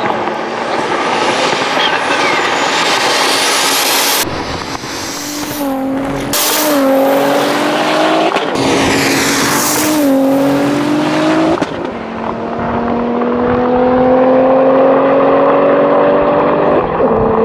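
Two high-powered cars, a tuned twin-turbo Audi S4 B5 and an Audi RS6 C7 V8, launching hard from a standing start and accelerating flat out. The engine pitch climbs and drops back at each upshift, about three times, then climbs slowly and steadily in a high gear.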